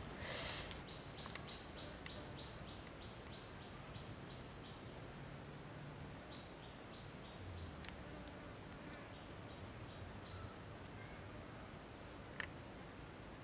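An insect chirping in a regular run of short high pulses, about four a second, that stops and restarts, over quiet outdoor hiss. A brief rustle just after the start and a sharp click near the end.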